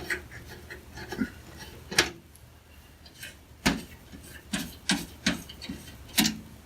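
Handling noise from a thin steel computer case: light rubbing with scattered knocks and clicks, a few sharper ones about two seconds in, near four seconds, and a quick cluster after that.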